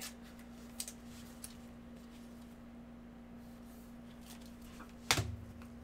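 Faint handling of trading cards and plastic card sleeves in gloved hands, with a few light ticks and one louder knock about five seconds in, over a steady low hum.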